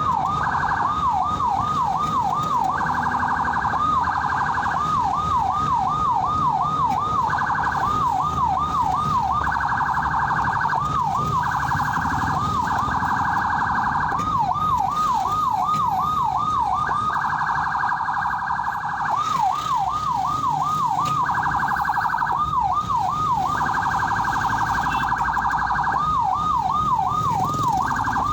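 Ambulance siren switching back and forth every few seconds between a fast yelp, with rising-and-falling sweeps about three times a second, and a steady, rapidly pulsing tone. A low road and engine rumble runs underneath.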